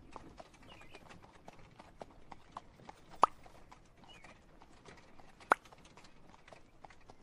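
Horse hooves clip-clopping steadily as a horse-drawn carriage travels, about three to four hoof clicks a second. Two sharp, much louder mouth pops cut in, about three seconds in and again about five and a half seconds in.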